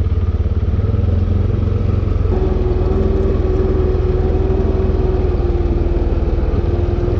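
ATV engine running steadily while riding, a dense low rumble of firing pulses. About two seconds in, a steady whine joins it and holds.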